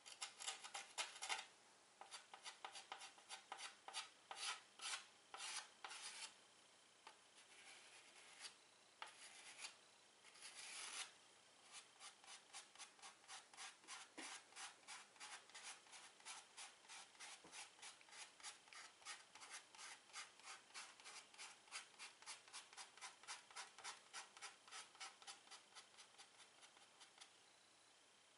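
Soft chalk scratching on a chalkboard in short strokes: irregular clusters of quick scratches, with a longer stroke about ten seconds in. Then comes an even run of quick dabs, about three or four a second, as stars are dotted onto the board.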